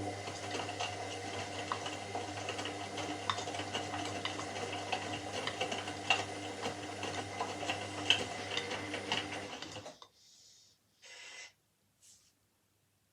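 Washing machine running with a steady motor hum and scattered clicks and knocks, stopping abruptly about ten seconds in. Two short hisses and a faint click follow.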